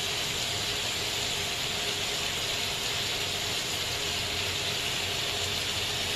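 Shrimp and baby carrots sizzling in oil on a hot ridged grill plate: a steady, even hiss.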